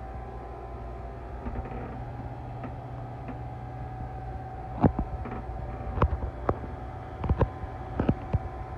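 Steady low hum of running machinery in a yacht's engine room, with a thin steady whine over it. From about halfway through, a scattering of sharp clicks and knocks.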